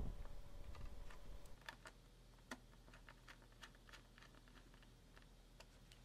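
Faint scattered clicks and ticks of a small screwdriver and screws against a 2011 iMac's metal drive bracket as its top screws are driven back in. About a dozen light clicks, one a little louder about two and a half seconds in.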